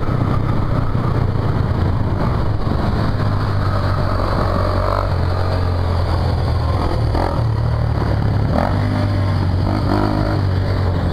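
Chinese 250 cc motorcycle engine running under way through traffic. The engine note steps up and down a few times.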